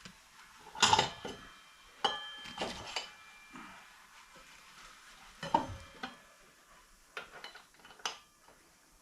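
Metal parts clinking and scraping as a motorcycle front wheel's axle and spacers are worked into place. Several sharp clinks, a few leaving a short metallic ring, with quieter scraping between.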